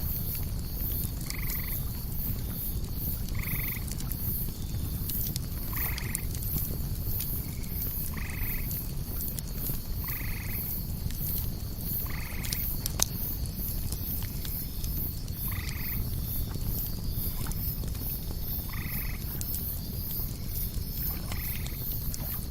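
A frog calls a short croak about every two to three seconds, nine times in all. Underneath are the scattered small pops and crackles of a campfire and a steady low rumble. A fast, even high-pitched pulsing of insects runs throughout.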